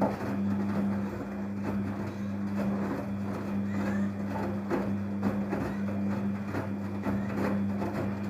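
Daewoo DWD-FT1013 washing machine running a quick 40°C wash: a steady motor hum with irregular soft knocks and swishes over it.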